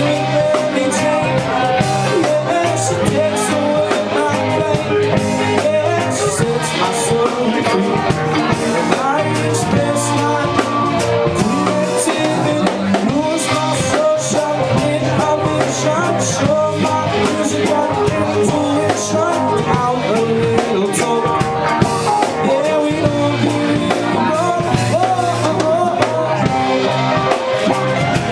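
Live rock band playing with drum kit and guitar, a blues-rock groove in a stretch without clear sung words.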